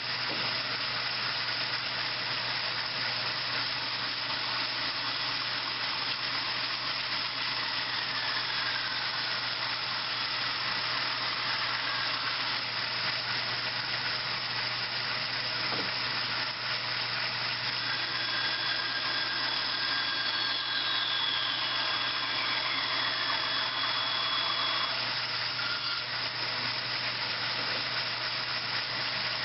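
Restored 36-inch Baxter Machine Co. No. 3 band saw running steadily on its single-phase 3 hp electric motor, a constant hum and hiss. Faint falling whistles come twice, with a steady high tone held for a few seconds in the second half.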